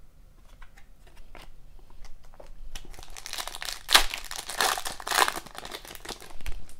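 Foil trading-card pack wrapper being torn open and crinkled by hand, starting about three seconds in after a few faint clicks, loudest just after it begins.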